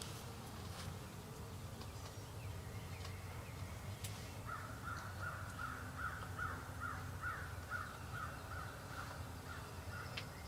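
A long run of turkey yelps, about three a second, begins about halfway through and stops near the end.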